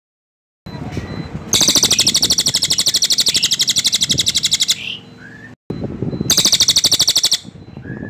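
Crested jay (cililin) giving its loud, tight rolling rattle: a long rapid trill of about three seconds, then a shorter burst of about a second after a brief break, with softer calls in between.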